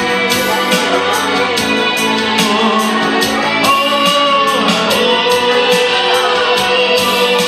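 Song with a steady beat of about two strokes a second, guitar and a singing voice.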